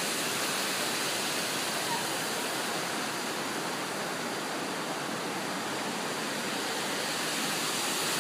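Steady rushing of the Reedy River falls, an even hiss of falling water with no breaks.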